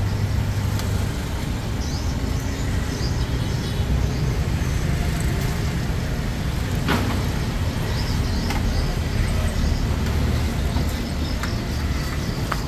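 Street traffic: a steady low rumble of vehicle engines going past, with one sharp click about seven seconds in.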